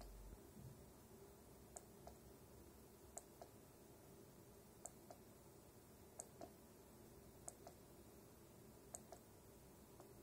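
Faint plastic clicks from an IKEA Tradfri wireless remote's button being pressed and released. Six press-and-release pairs come about every second and a half.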